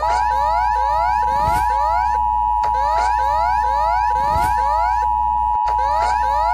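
Emergency alert alarm: a steady two-tone attention signal held under a rapidly repeating rising siren sweep. It starts abruptly and stays loud and unbroken.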